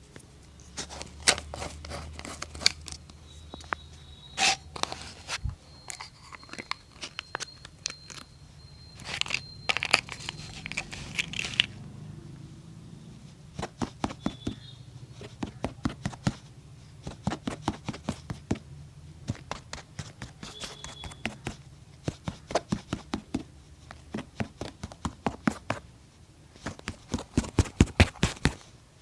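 Quick strokes of a shoe brush or cloth rubbing across a leather boot, irregular at first, then settling into a steady rhythm that gets faster near the end.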